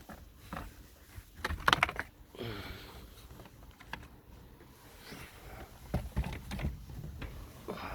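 A few knocks and clunks from something being handled, the loudest cluster about two seconds in and a few more near the end.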